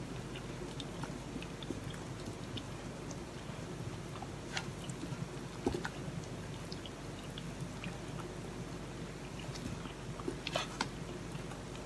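Wooden spoon stirring thick banana cake batter in a stainless steel saucepan: soft wet squelching with small scattered clicks and scrapes of the spoon against the pan, a few louder near the middle and the end. A faint steady hum lies underneath.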